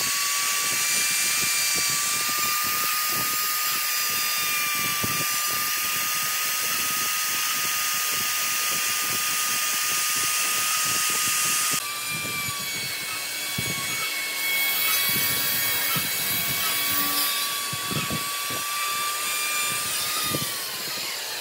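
Compact handheld trim router running at full speed with a steady high whine, its bit cutting along a wooden edge. Near the end the whine falls in pitch as the motor spins down.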